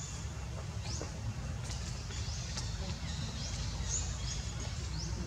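Baby monkey giving a series of short, high squeaks, each sweeping upward in pitch, several in a few seconds, over a steady low rumble.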